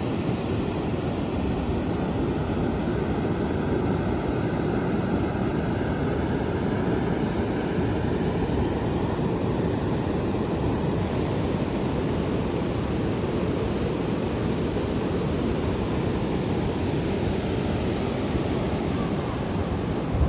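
Steady rushing of ocean surf mixed with wind buffeting the microphone.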